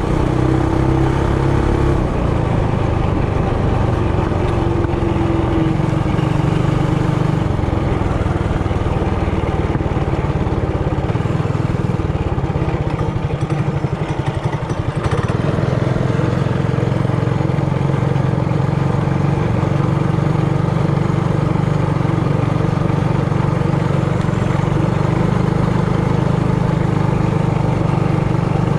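Trailmaster Hurricane 200X mini bike's single-cylinder gas engine running under way at steady speed. About twelve seconds in it eases off to a slower, pulsing idle-like note, then picks back up after about three seconds.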